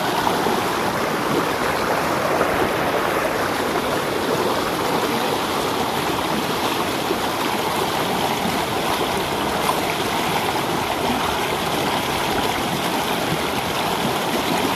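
Shallow, rocky river rushing over stones and small rapids: a steady, close rush of water.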